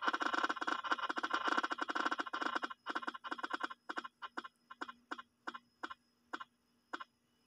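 Spinning-wheel picker app on a smartphone ticking as its wheel spins: rapid ticks at first that slow steadily and spread out to about two a second as the wheel coasts to a stop.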